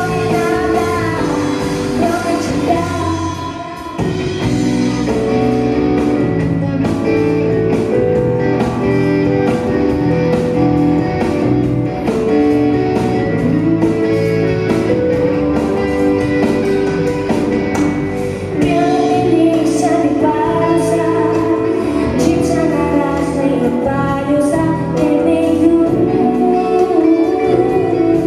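A song with a woman singing over a band of electric guitar, keyboard and drums, with a brief dip in loudness about four seconds in.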